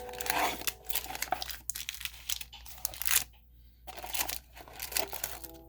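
Crinkling, crunching and tearing of plastic and cardboard packaging as a Pokémon Elite Trainer Box is unpacked. There are irregular crackles, with a short lull about halfway through.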